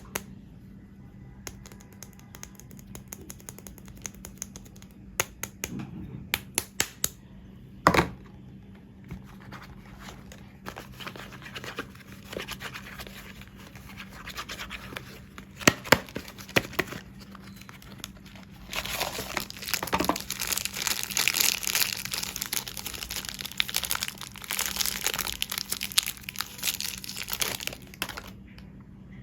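Soap wrapping crinkling and tearing as soap bars are unwrapped by hand, with scattered sharp taps and clicks at first and a long stretch of continuous crinkling in the second half.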